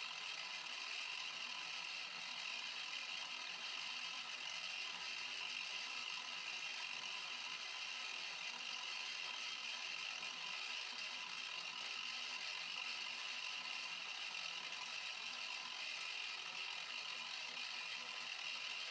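Mini milling machine running steadily with a high whine as its end mill cuts a round white plastic part, shaving off chips.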